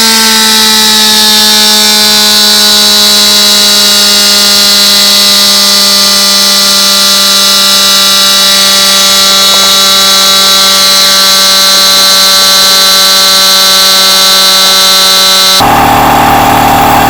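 Cordless Metabo HPT 2-gallon air compressor's motor and pump running loud and steady, its pitch slowly sinking as the tank fills. Near the end the motor hum cuts off suddenly and a loud hiss of escaping air takes over: the fault the owner is showing, where a part pops out by itself as the tank gets full and the tank loses air.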